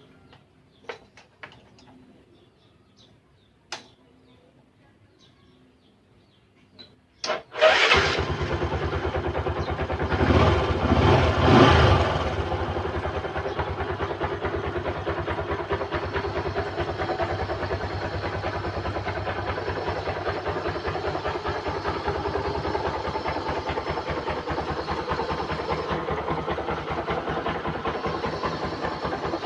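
A few light clicks, then about seven seconds in a Rouser 135 LS motorcycle's single-cylinder engine cranks briefly on the electric starter and starts. It revs a few times and settles into a steady idle, the push-button starter working after its wiring was redone.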